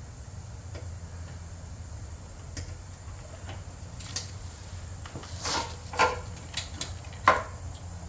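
Scattered clicks and knocks of something being handled, sparse at first and then a quicker cluster in the second half, the sharpest one near the end, over a steady low hum.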